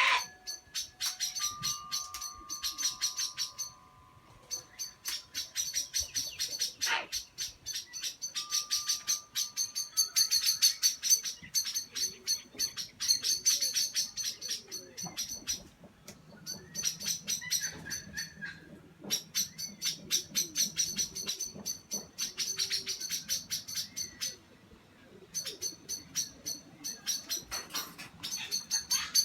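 Birds giving rapid, high-pitched chattering calls, many per second, in bouts of several seconds broken by short pauses.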